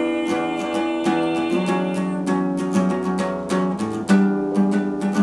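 Acoustic guitar strummed in a steady rhythm, chords ringing between the strokes, with no voice over it.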